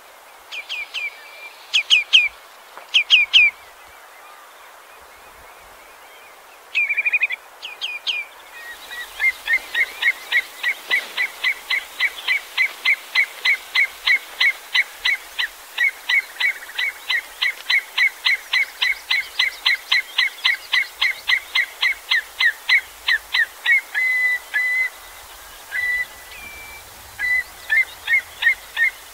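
Common redshank calling: a few short piping notes in quick groups, then a long run of rapid repeated notes, about three a second, breaking up into scattered single notes near the end.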